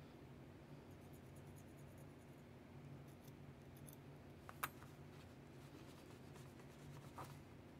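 Near silence with a faint steady hum, broken by a few light clicks of small chrome guitar-tuner parts being handled, the sharpest a little past halfway.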